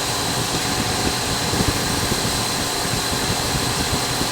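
A machine running steadily: an even rushing hum with a low rumble and a thin, high-pitched whine held on one note.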